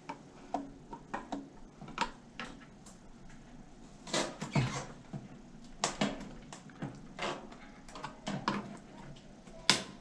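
Scattered plastic clicks and knocks from a GE dryer's plastic control panel being pushed and pried at its tabs with a screwdriver, with a sharp click near the end.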